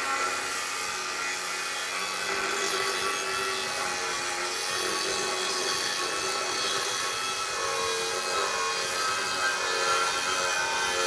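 A power tool working on steel, running continuously with a steady high whine over a rough grinding noise.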